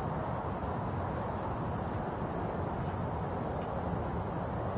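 Insects chirping in a high, even pulse of about three to four chirps a second, over a steady low rumble.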